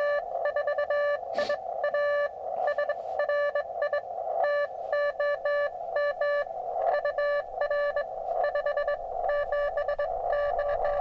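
Morse code (CW) received on a ham radio: a steady-pitched beep keyed on and off in dots and dashes over a hiss of band noise. The other station is sending its call, a 579 signal report and its location, Virginia. There is one sharp click about a second and a half in.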